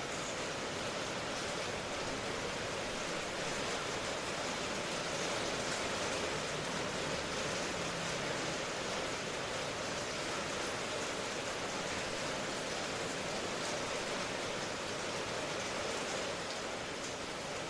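Steady rain falling, an even rushing noise that holds level throughout.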